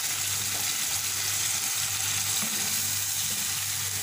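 Mutton karahi sizzling in a wok, the meat cooking in a thin tomato-and-spice gravy with water added: a steady, even hiss over a low hum.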